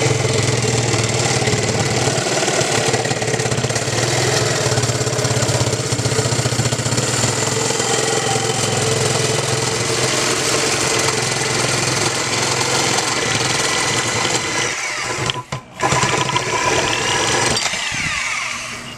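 Corded reciprocating saw cutting through a metal exhaust pipe clamped in a vise, running steadily and loudly with a brief pause about fifteen seconds in.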